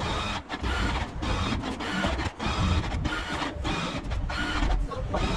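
Electric motor of a powered stair-climbing trolley running as it hauls a vending machine up the stairs, in short runs broken by brief pauses about once a second.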